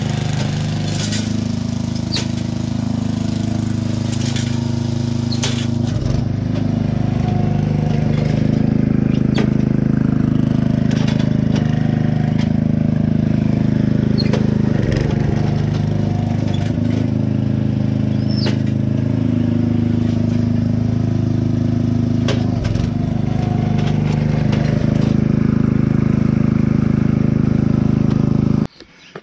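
Ryan Lawnaire IV walk-behind core aerator with its small engine running steadily, with scattered sharp clicks and knocks over the drone. The sound cuts off suddenly near the end.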